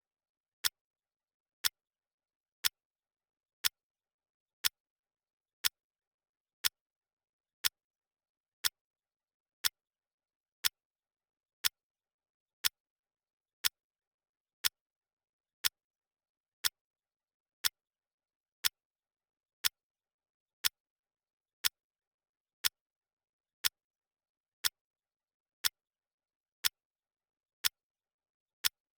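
Clock ticking sound effect: a single sharp tick once a second, evenly spaced, marking off the seconds of a countdown timer.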